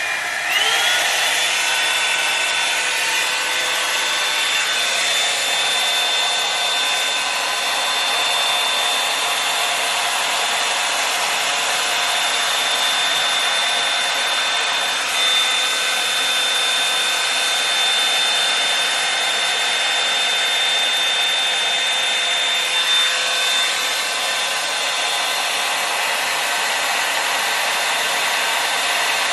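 Revlon One Step hair dryer brush running: its motor whine rises as it spins up in the first second, then a steady rush of air with a high whine, which drops out about 23 seconds in while the airflow continues.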